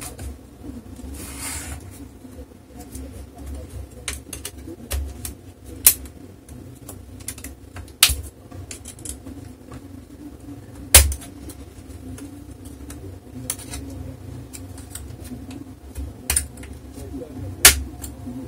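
Plastic snap-fit clips of an HP Pavilion 15 laptop's bottom case clicking and snapping loose as a thin knife pries along the seam. Many small clicks, with four louder snaps spread through, over a steady low hum.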